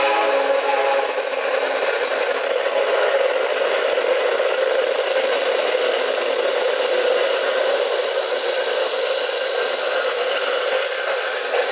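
Phone recording of a real freight train behind MRS C30 diesel locomotives passing, played through a small cheap Bluetooth speaker: a steady rattling, scraping rush of wheels on rail, thin and without bass. A horn note dies away in the first second.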